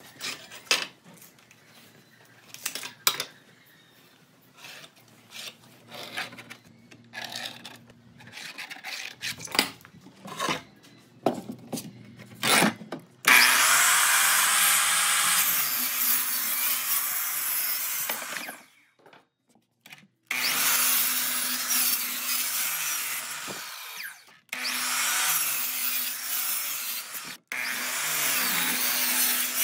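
Scattered knocks and clatter of wood being handled, then, about thirteen seconds in, a sliding compound miter saw cutting through a thick wooden slab in several runs with short breaks between them. The saw cutting is the loudest sound.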